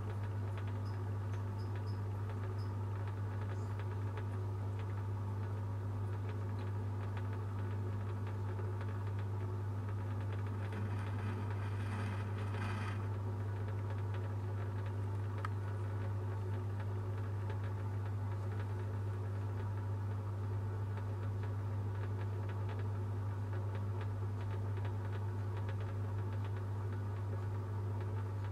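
A steady low electrical hum with many steady overtones. Faint clicks and scratches are scattered through it, with a short rustle about twelve seconds in.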